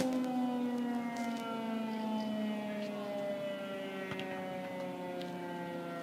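Civil defence siren winding down, its wail sliding slowly and steadily lower in pitch as it fades.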